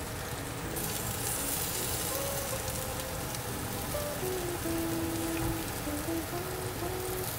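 Sliced potatoes sizzling as they fry in oil in a pan, a steady hiss that gets brighter about a second in. Soft background music plays a slow melody over it.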